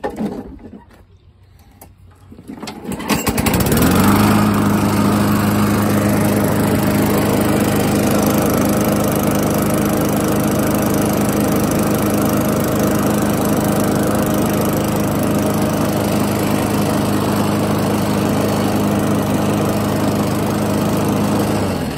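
Craftsman push mower's 4.5 hp Tecumseh single-cylinder four-stroke engine, freshly fitted with a new primer bulb, pull-started and catching about three seconds in. It then runs steadily at one constant speed, and begins winding down just before the end.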